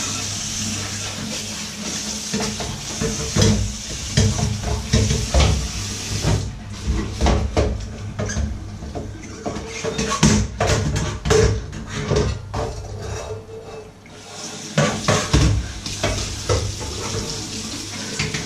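Dishes being washed by hand in a stainless steel sink: the tap runs, stops about six seconds in while crockery and cutlery clink and knock, then runs again near the end. A steady low hum sits underneath.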